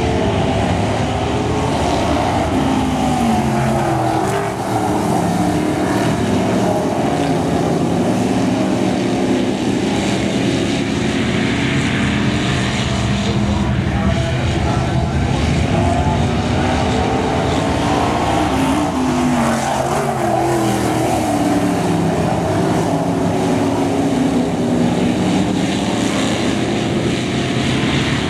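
Vintage modified dirt-track race cars racing, their engines running hard without a break. The engine notes sweep up and down in pitch as the cars come past.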